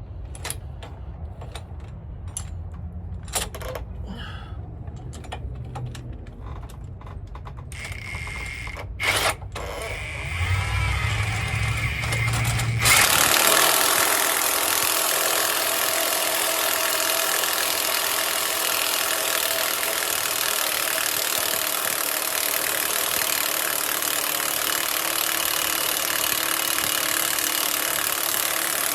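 Scattered clicks and knocks over a low hum, then about 13 seconds in a power tool starts abruptly and runs steadily at a constant speed, loud and even.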